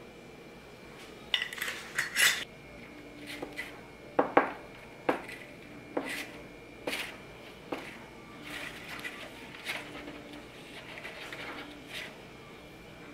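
Metal spoon clinking and scraping against a glass mixing bowl and a foil baking tray while spooning brownie batter into paper cupcake liners: about ten irregular clinks and scrapes, the loudest about two seconds in.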